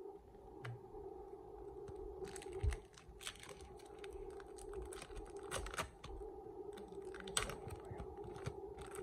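Foil wrapper of a hockey card pack crinkling and crackling as it is torn open and the cards are pulled out: a busy run of sharp crinkles starting about two seconds in, over a faint steady hum.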